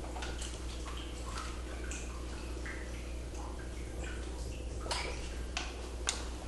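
Scattered light clicks and taps over a steady low hum, with two sharper clicks about five and six seconds in.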